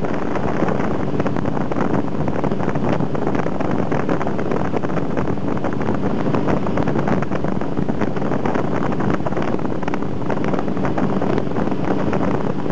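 Towing boat's engine running steadily at speed, with wind buffeting the microphone and the rush of water spray.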